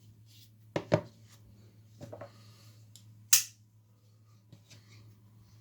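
Metal clicks and taps of a Victorinox Swisstool multi-tool being handled: a few sharp clicks, the loudest and sharpest about three and a half seconds in.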